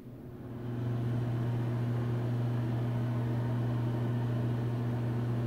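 Penn Zephyr ceiling exhaust fan running with a strong, steady low buzz over the rush of air: the fan's buzzy condition. The buzz builds up over about the first second, then holds steady.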